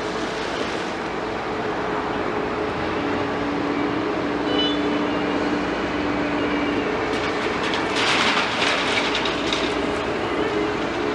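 Heavy excavator's diesel engine and hydraulics running steadily with a constant hum. About eight seconds in comes a louder burst of rattling and clatter lasting a second or two.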